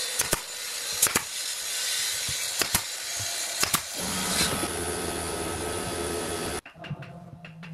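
Pneumatic brad nailer firing brads into a pine frame: about four sharp shots roughly a second apart, each a quick double snap, over a steady hiss. The sound cuts off abruptly near the end.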